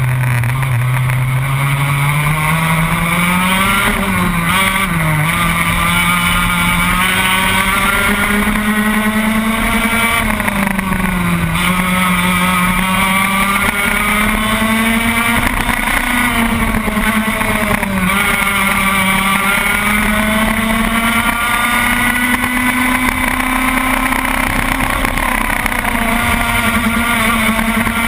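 Racing kart engine recorded onboard, held at high revs and repeatedly dropping in pitch as the driver lifts for corners, then climbing again on the straights.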